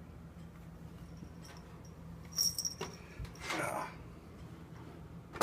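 Handling noise from a metal box fan being moved: a short metallic rattle with a thin ring about halfway through, a scrape soon after, and a sharp knock at the very end.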